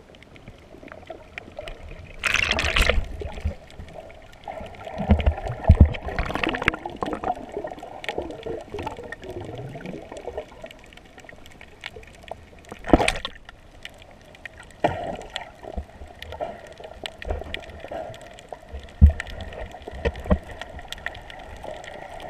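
Muffled underwater sound picked up by a submerged camera: water gurgling and moving, with a few sudden louder rushes and some low knocks.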